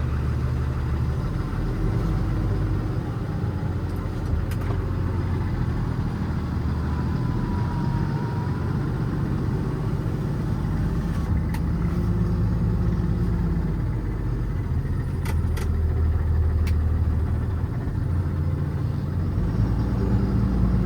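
Cummins ISB 6.7 inline-six turbo diesel of a Freightliner M2 running, heard from inside the cab, with the engine note shifting a few times. A few light clicks are heard over it.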